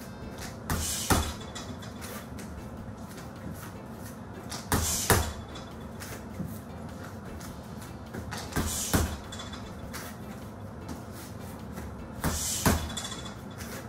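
Gloved strikes landing on a heavy punching bag in four short flurries, about every four seconds, each with a sharp hissing exhale from the fighter.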